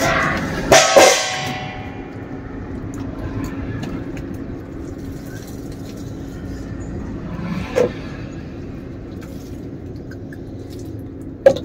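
Clatter and knocks of food containers and a plastic water cooler being handled and set down, loudest about a second in, with a single knock near the end, over a steady low hum.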